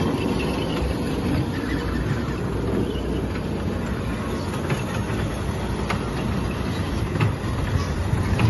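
A kiddie train ride running, its small cars rumbling and rattling along the track. From about halfway through, a sharp click comes roughly every second and a quarter.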